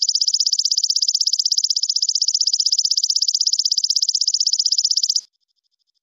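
Belalang kecek (walang kecek) singing: a loud, rapid, pulsed buzzing trill that stops abruptly about five seconds in, leaving only faint pulsing.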